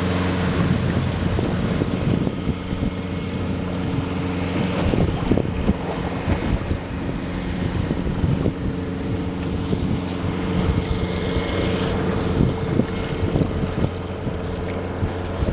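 Outboard motor of a small open boat running at a steady speed, one even drone, with wind buffeting the microphone.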